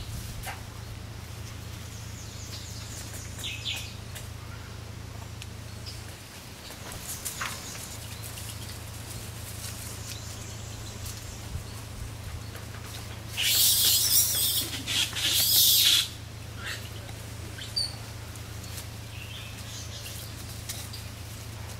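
Monkeys scuffling in dry leaf litter: scattered faint rustles and small clicks over a steady low hum, with a loud burst of rustling and scraping lasting about two and a half seconds just past the middle.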